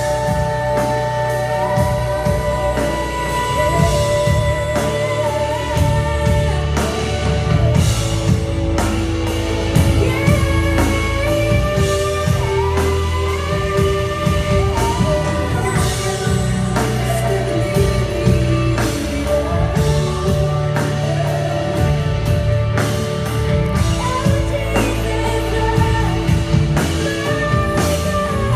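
A live contemporary worship band playing a song: several singers carry the melody over electric guitar, bass guitar, keyboard and a drum kit, with steady drum hits.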